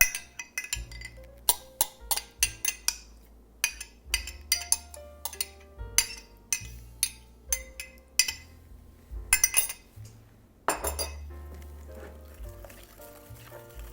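Stirring utensil clinking irregularly against a mixing bowl while yogurt is mixed into batter, over background music with a steady bass line. A brief scraping sound comes about three-quarters of the way through.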